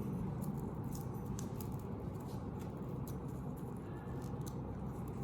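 Scattered small clicks and rustles of packaging being handled and unwrapped by hand, over a steady low room hum.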